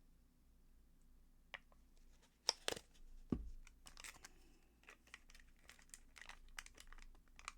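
Faint scattered clicks, taps and rustling of craft supplies and small containers being handled on a table, with two sharper clicks about two and a half seconds in and a low knock just after.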